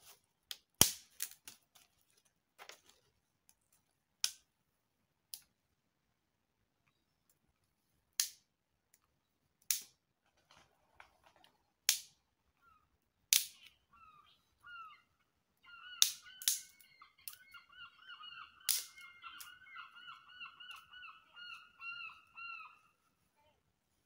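Sharp, scattered snaps and cracks of dry sticks being broken and fed onto a small wood campfire. Over the last third comes about seven seconds of a wavering, high, honk-like sound made of many short notes.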